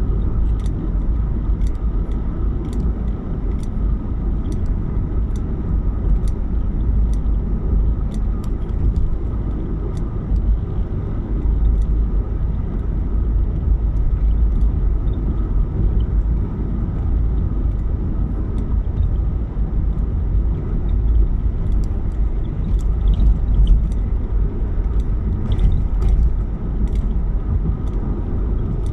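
Steady low rumble of a car driving, with faint scattered ticks.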